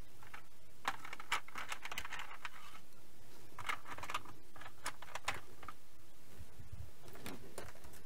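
Scattered light clicks and clatter in short clusters, from small hand tools being picked up and handled on a work mat.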